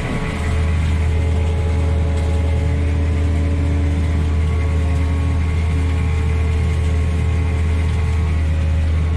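Heavy diesel farm machinery running steadily under load: a tractor hauling a cane wagon beside a working sugarcane harvester, a deep even drone that grows louder about half a second in.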